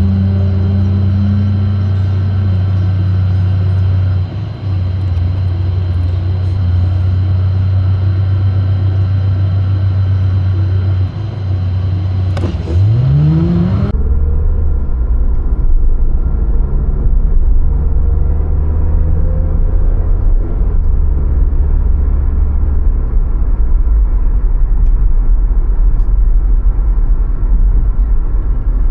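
A car driving in traffic: steady low engine and road noise, with a quick rising rev about two-thirds of the way through.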